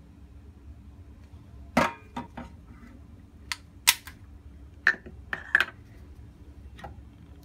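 Plastic hose quick-connect fittings and spray nozzle clicking and knocking as they are handled and fitted together over a stainless steel sink: about ten sharp, separate clicks, the loudest near two seconds in and again near four seconds.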